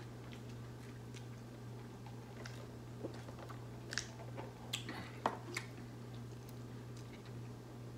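A man chewing a mouthful of chicken sandwich, then sipping through a straw from a paper cup, with a few short light clicks and ticks as the cup is handled, most of them in the middle. A steady low hum lies underneath.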